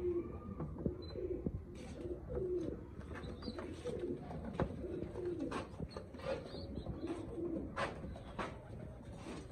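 Satinette pigeons cooing over and over in low, warbling calls, with scattered sharp clicks among them.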